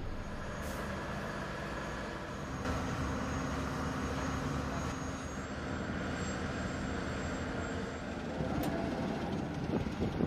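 Steady engine and machinery rumble with faint held tones, changing character a couple of times as the footage cuts between shots.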